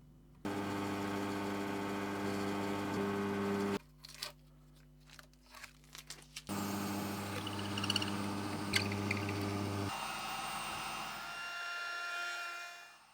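A power tool's motor running in two bursts of a few seconds each, with clicks and handling noise in the gap between them. Near the end the sound turns thinner and higher-pitched, then dies away.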